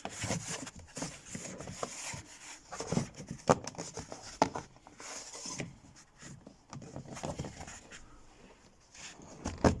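A door card trim insert being handled, lined up and pressed onto its pegs: rubbing with scattered light knocks and clicks, the sharpest about three and a half seconds in and just before the end.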